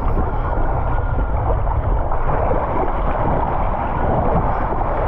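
Steady rush of running water with wind buffeting the microphone, as on a ride down a water slide.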